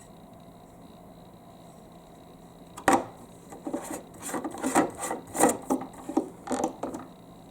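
Plastic marble-run pieces clicking and clattering: one sharp click about three seconds in, then irregular rubbing and clattering strokes for a few seconds.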